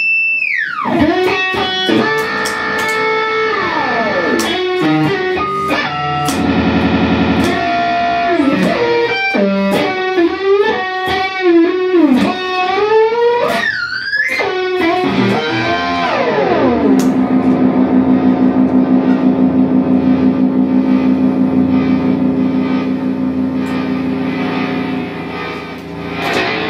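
Solo Stratocaster-style electric guitar playing an experimental piece: held notes that slide down in pitch, quick clicks and plucked notes, and a wavering squeal about halfway. This is followed by a long downward slide into a held chord that pulses in loudness a few times a second, the pitch dips worked with the tremolo arm.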